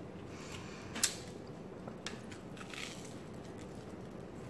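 Quiet eating sounds of a tomato and cheese sandwich being chewed, with a few faint rustles and one sharp click about a second in.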